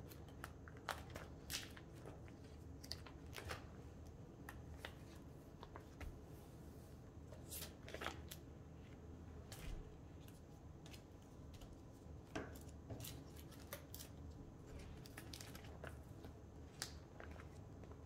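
Photocards being handled and slid in and out of plastic binder sleeves: faint, irregular crinkles, scrapes and small clicks.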